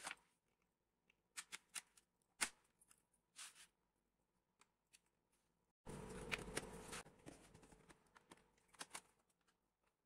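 Scattered light clicks and taps from a Dell laptop's plastic casing as it is handled and prised apart, the sharpest about two and a half seconds in. About six seconds in, a faint steady hiss begins abruptly, with more small clicks over it.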